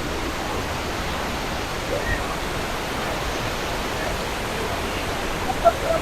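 Kuang Si waterfall: falling water giving a steady, unbroken rushing noise.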